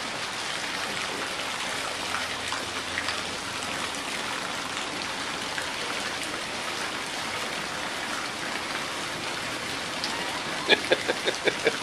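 Steady splashing of water in a backyard swimming pool, from a jet stirring the surface. A few short, sharp sounds come in near the end.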